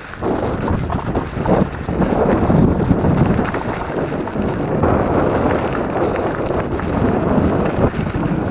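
Wind buffeting the microphone on a moving electric mountain bike, mixed with the crunch and rattle of its tyres rolling over a rough gravel wash.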